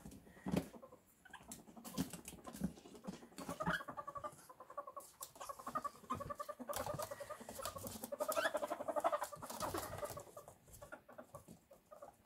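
Two ferrets scuffling on a laminate floor, claws clicking. From about three and a half seconds in to about ten seconds there is a rapid clucking chatter, the ferret 'dooking' of a male in heat chasing and wrestling a female.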